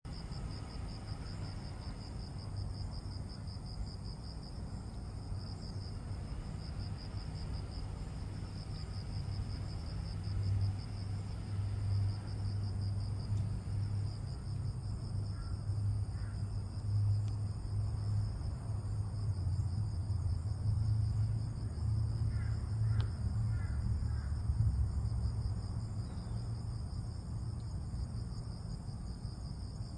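Insects trilling steadily outdoors, a continuous high, rapidly pulsing chirr, over a low steady rumble. A few faint short chirps come in the second half.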